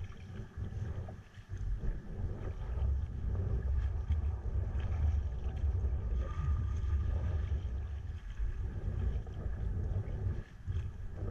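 Wind buffeting a sea kayaker's action-camera microphone as a fluctuating low rumble, with faint splashing of water around the kayak.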